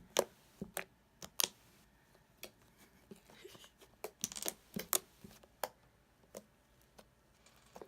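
Fluffy slime made from glue, shaving foam and contact solution being squished and folded by hand, giving short, irregular clicks and pops.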